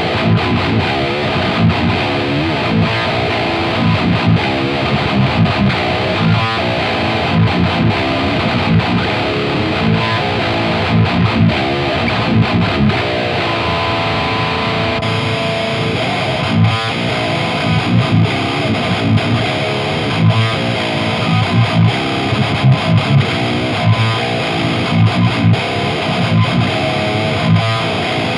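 Seven-string electric guitar (Schecter Hellraiser Hybrid) playing heavy distorted riffs through a high-gain amp and an old, worn Marshall 1960A 4x12 cabinet, with a held chord ringing out about 14 seconds in. Just after, the same riffing comes through a brand-new Marshall 1960A cabinet, which sounds brighter.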